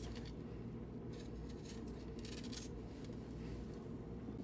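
Fresh ginger root being peeled: a few soft, short scrapes of the skin coming off, over a steady low hum.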